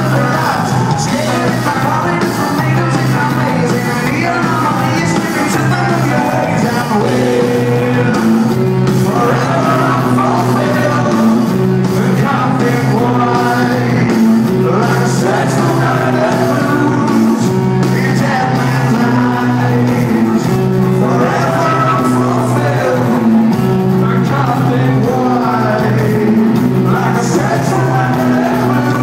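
Rock band playing live, with electric guitars, drums and a lead singer, heard loud through a phone's microphone from the crowd.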